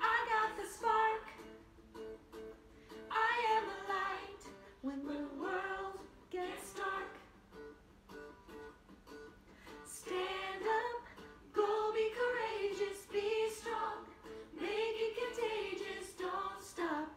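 A woman singing a song in phrases with short breaks between them, over an instrumental accompaniment.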